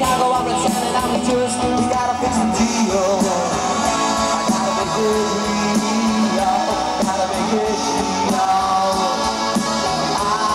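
Live rock band playing: electric guitars and drums with a male lead vocal, heard from the audience on a camcorder microphone.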